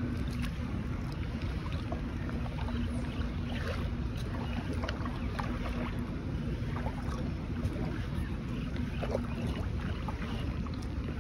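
Kayak paddling on calm water: many small splashes and drips from the paddle and water lapping against the plastic hull, over a steady low wind rumble on the microphone. A faint low hum runs underneath, now and then breaking off.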